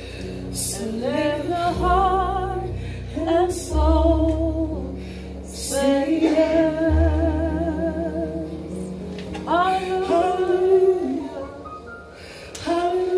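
A worship song: a woman singing held notes with vibrato in phrases of a few seconds, over deep sustained bass notes.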